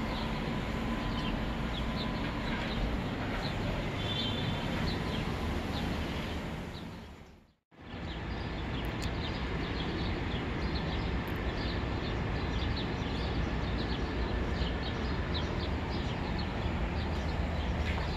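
Steady outdoor ambience, a low rumble and hiss like distant traffic, with many short high bird chirps over it. The sound fades out to silence about seven and a half seconds in and comes straight back.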